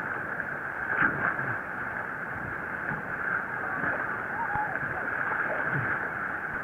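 Steady rushing of river whitewater around a raft, with faint distant voices.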